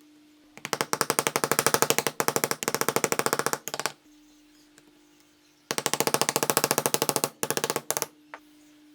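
A power tool running in two bursts of rapid, rattling hammering, about ten strokes a second, with a faint steady hum between the bursts.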